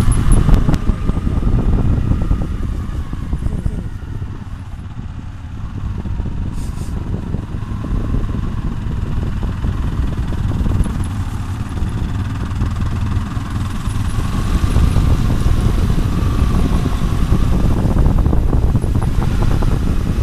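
Motorcycle riding, its engine running under heavy wind buffeting on the phone's microphone, a loud low rumble that eases off briefly about four seconds in.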